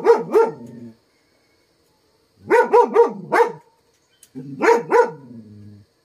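A dog barking in three bursts of several barks each, with short gaps of silence between them.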